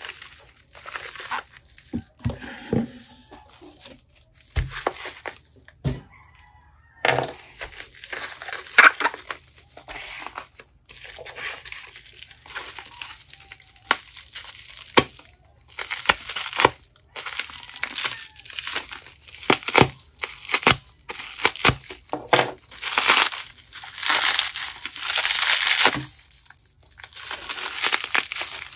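Plastic bubble wrap being handled, slit with a small blade and pulled apart: irregular crinkling and rustling with sharp clicks. It grows louder and denser over the second half.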